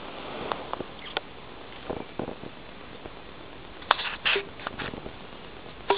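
Soft scattered rustles and clicks of a kitten scrambling and pawing about in a lap, with a short cluster of louder knocks and scuffles about four seconds in.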